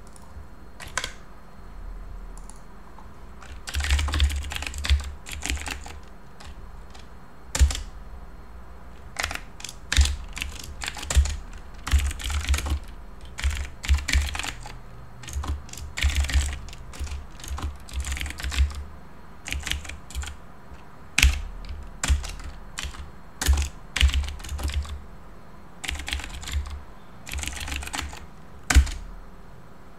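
Typing on a computer keyboard: quick runs of key clicks broken by short pauses, with a few harder single keystrokes, as terminal commands are entered.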